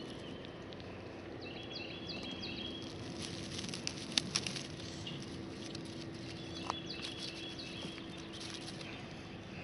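A songbird sings two runs of quick, high chirped notes, one early and one late. Under them are a few sharp clicks and rustling as dry straw mulch is pushed aside and asparagus spears are cut at the base with a small knife. A faint steady hum runs underneath.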